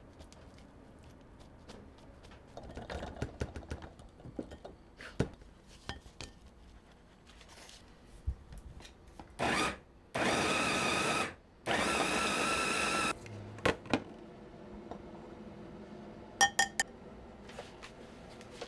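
Small electric food chopper with a glass bowl, pulsed three times to mince cooked meat. Its motor whirs in three short bursts, the first briefest and the next two about a second and a half each. A few light knocks of handling come before, and a quick cluster of sharp clicks comes near the end.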